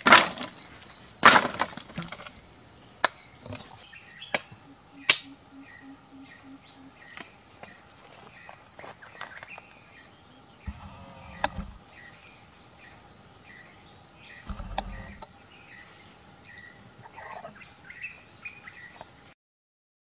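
Dry sticks clattering as they are dropped and stacked onto a campfire: a few loud, sharp wooden knocks in the first five seconds, then lighter clicks and snaps. A steady high insect drone runs underneath. The sound cuts off suddenly near the end.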